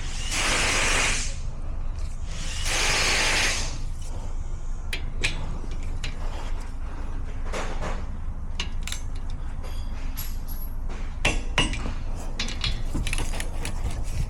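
Two hissing bursts of about a second each, then scattered metallic clinks and taps as of tools being handled, over a steady low rumble.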